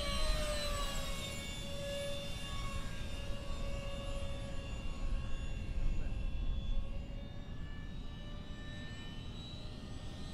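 The 64 mm electric ducted fans of radio-controlled F/A-18 jets whining as they fly past. The pitch falls just after the start and rises again near the end.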